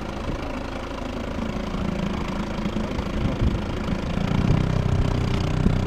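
Small 5 hp Mercury outboard motor running steadily, pushing an inflatable boat along; it grows somewhat louder about four seconds in.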